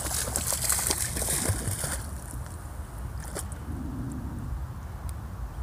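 Water splashing and sloshing as a dog wades through shallow creek water, busiest in the first two seconds, then settling to a few faint drips and sloshes.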